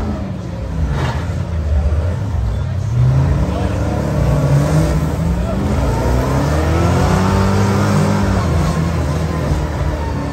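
Truck engines revving hard under load in a tug-of-war pull, the pitch rising and falling again and again.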